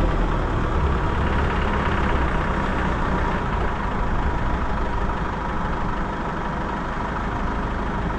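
Car engine running steadily at low revs: a low rumble with a faint steady whine above it, easing slightly quieter about halfway through.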